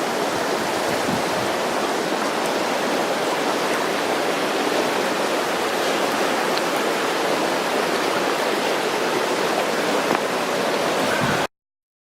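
Flowing water rushing steadily, with a few faint clicks, cutting off suddenly near the end.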